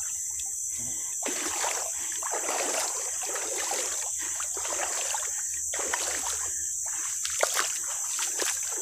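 Bare feet wading through shallow floodwater, each step a splash and slosh, coming every half second to a second. A steady high-pitched drone runs underneath.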